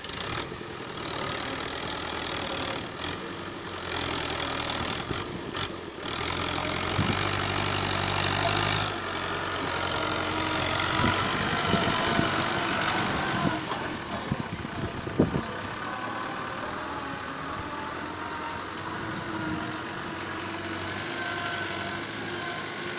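Excavator's diesel engine running steadily, with a deeper, stronger engine note from about seven seconds in that drops away suddenly two seconds later, and a few sharp knocks a little after.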